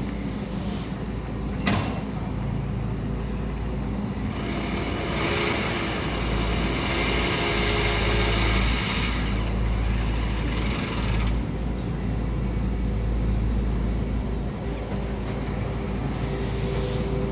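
Heavy diesel construction machinery, an excavator, running steadily, with a sharp click about two seconds in and a long hiss with a high whine from about four to eleven seconds in.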